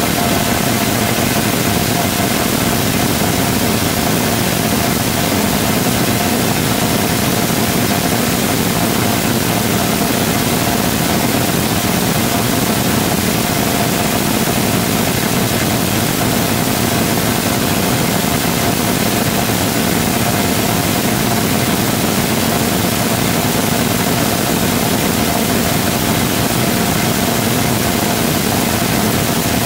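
A full-scale 3D-printed rotating detonation rocket engine combustor firing steadily on a test stand. Its exhaust makes a loud, unbroken rush with a single steady tone held through it.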